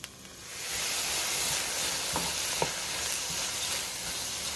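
Rice sizzling in a hot wok as it is stirred with a wooden spatula after soy sauce has gone in. The sizzle swells up about half a second in and holds steady, with two light knocks of the spatula on the wok a little after two seconds in.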